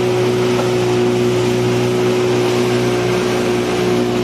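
Outboard motor of a small speedboat running at a steady cruising speed, heard from aboard, with a constant hum and the rush of water and wind over it.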